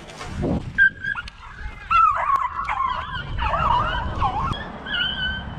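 Beagle hounds baying on a rabbit's scent: loud high howls that rise, fall and waver, one call after another.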